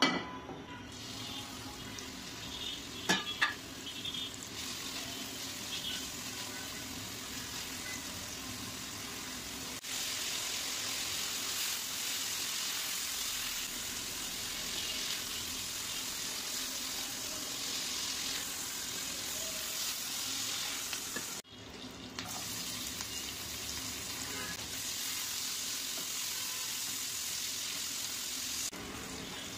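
Prawns, then sliced onions, sizzling in hot oil in a nonstick wok, stirred with a silicone spatula. The sizzle gets louder about a third of the way in, drops out for a moment about two thirds through, and two sharp knocks sound about three seconds in.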